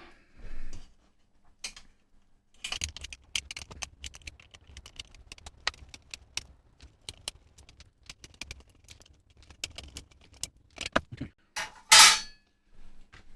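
Quick, irregular small metallic clicks and rattles of tools and metal parts being handled as the multimeter's casing and internal shield are taken apart, with one louder clatter near the end.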